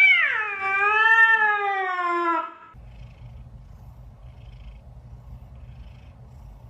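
A cat's long, drawn-out meow that rises and then falls in pitch, ending about two and a half seconds in. A quieter low, steady rumble follows.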